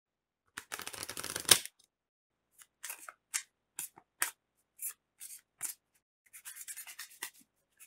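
Short, dry rustles and clicks: a quick rattling run about a second in that ends in a sharp snap, then single ticks and swishes, and another brief rattling run near the end.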